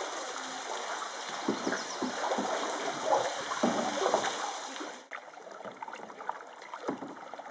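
Water splashing and lapping around a canoe as it is paddled, with irregular splashes. About five seconds in it drops to quieter water sounds with a few light splashes.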